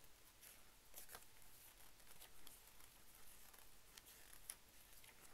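Faint rustling and soft ticks of paper being handled, as the pages and pull-out posters of a football annual are turned over.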